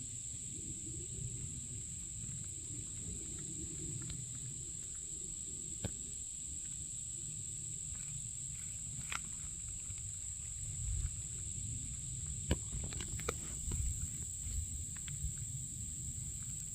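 Steady, high-pitched insect chorus of crickets or similar insects, unbroken throughout, over a low rumble of wind or handling. Scattered sharp clicks come in, more of them in the second half.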